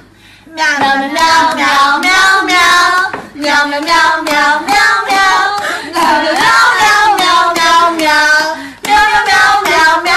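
A high voice singing a melody, loud, starting about half a second in, with short pauses between phrases.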